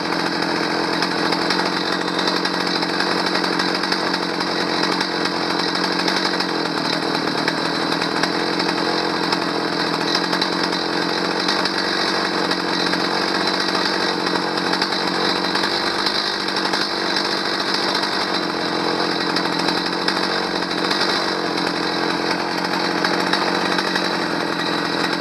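Stihl 029 chainsaw's two-stroke engine running steadily with its cover off, unchanging in pitch and level. It keeps running because its choke/stop lever has broken off, so it cannot be switched off.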